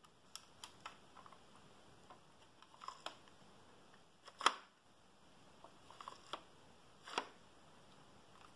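Plastic LEGO bricks of a brick-built rifle model clicking and knocking as it is handled, a run of scattered light clicks with a louder clack about halfway through and another a little later.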